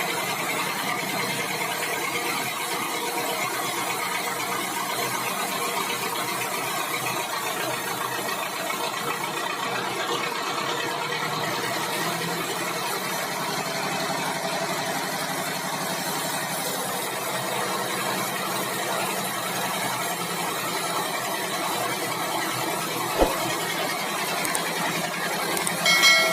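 Sawmill machinery running steadily, a dense mechanical noise with faint steady tones, with one sharp knock late on and a brief high squeal near the end.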